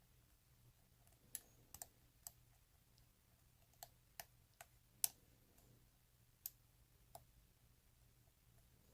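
Faint, irregular metallic clicks of a steel hook pick working the pins of a Euro cylinder lock under tension, about ten in all, the loudest about five seconds in.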